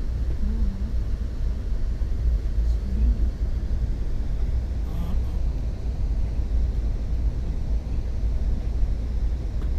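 Steady low rumble of a passenger train in motion.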